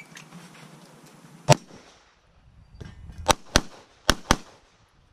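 Pistol shots: a single shot about a second and a half in, then two quick pairs of shots (doubles) about three and four seconds in.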